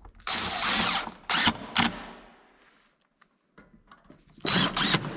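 DeWalt cordless drill driving screws through a metal bracket into wood framing: a run of about a second, two short bursts, a pause, then another short run near the end.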